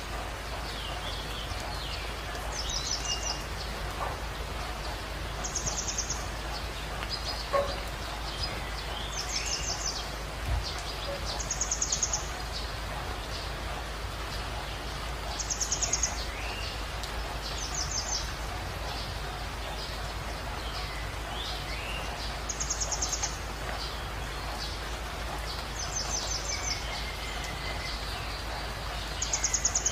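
Birds chirping: short high trills every few seconds, with a few lower sliding chirps, over a steady hiss.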